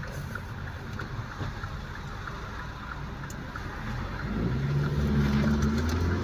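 Opel Vectra C2's engine and road rumble heard from inside the cabin; about four seconds in the engine note swells and rises slightly in pitch as the car accelerates.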